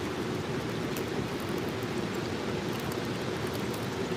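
Sanma (Pacific saury) sizzling on a wire grill net: a steady hiss with scattered small crackles and pops.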